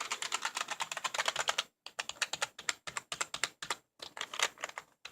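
Fast typing on a cheap rainbow-backlit computer keyboard: quick runs of key clicks broken by brief pauses. It sounds really nice.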